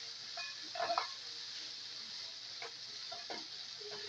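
Chicken and diced sweet peppers sizzling steadily in a skillet while they are stirred with tongs, with a few soft scrapes and clicks of the tongs against the pan.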